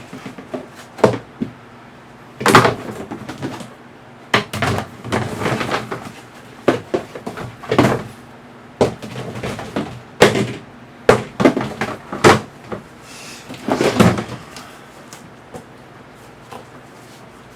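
Plastic worm-bin trays and parts being handled and fitted together: irregular hard knocks and clatters, with short stretches of rubbing and scraping between them, dying away near the end.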